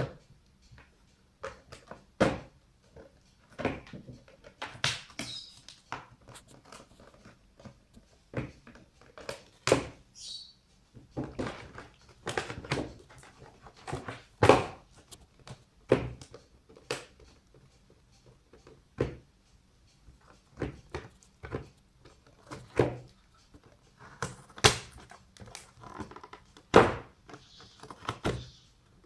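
A cat biting and tearing at the rim of a thin cardboard box, making irregular sharp crunches and rips, roughly one every second or so, with a few louder knocks of the box.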